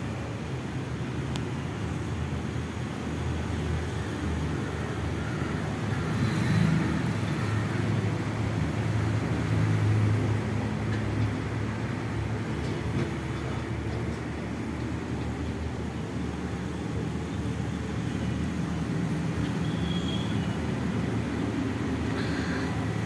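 Steady low rumble of vehicle traffic, swelling for a few seconds from about six seconds in.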